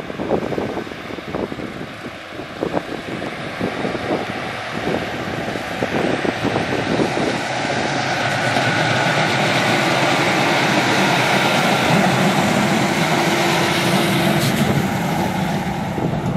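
ScotRail Class 156 two-car diesel multiple unit pulling away from a station and passing close by. Its underfloor diesel engines and wheels grow steadily louder and are loudest as it goes past, then begin to fade near the end. There are irregular knocks in the first few seconds.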